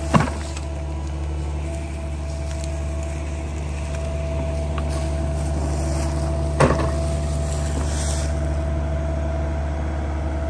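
Small SANY mini excavator's diesel engine running steadily. A sharp knock comes right at the start and another about six and a half seconds in.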